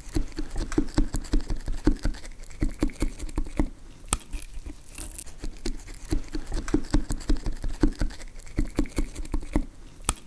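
Chef's knife chopping napa cabbage into fine shreds on a wooden cutting board: quick knocks of the blade through the leaves onto the board, about four a second, with a short pause about four seconds in.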